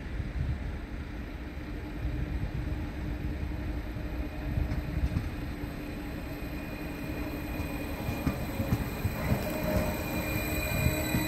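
Nordbahn Stadler FLIRT electric multiple unit approaching and running past close by, its electric drive whining in a few steady tones that grow louder as it nears, over a low rumble of wheels on rails.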